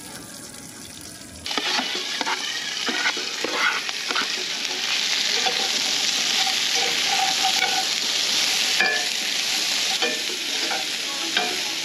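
Diced vegetables sizzling in a hot, oiled cast iron skillet and being stirred with a spatula, which scrapes and clicks against the pan. The sizzling starts suddenly about a second and a half in.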